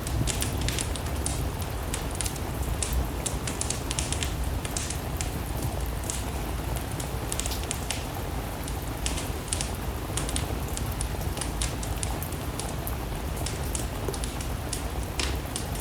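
Wood fire crackling and popping in a fireplace, with many sharp irregular pops, over a steady wash of rain and a low rumble.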